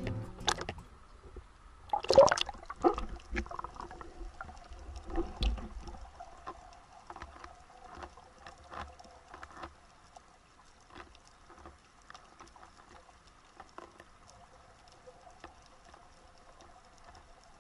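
Water sloshing and bubbling around an underwater camera, loudest about two seconds in. It then settles to faint scattered clicks over a faint steady hum.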